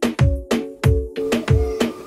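Background music with a steady electronic beat: deep kick drums and short melodic notes, with a thin steady high note coming in a little over halfway.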